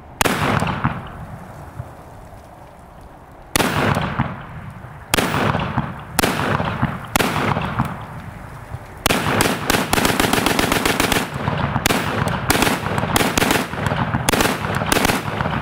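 AK-pattern pistol in 7.62x39 firing: one shot, then a few single shots about a second apart, then rapid strings of shots as it is bump fired.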